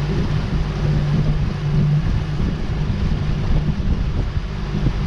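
Outboard motor running steadily at low cruising speed, about 7 miles an hour, kept below planing speed because the motor cuts out above about 10 mph. Wind buffets the microphone over the hum of the motor and the water.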